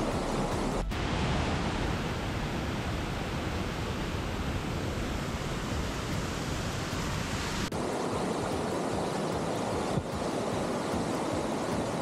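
Steady rush of a mountain stream and waterfalls, a constant noise that changes tone abruptly about one, eight and ten seconds in.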